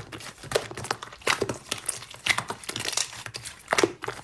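Thick white slime being squeezed and kneaded by hand, giving irregular squishy clicks and crackles.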